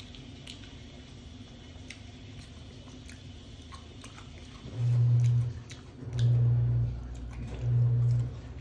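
Faint clicks and chewing while eating. About five seconds in, a loud, low, even-pitched buzz starts pulsing on and off, each pulse under a second long and coming about every one and a half seconds.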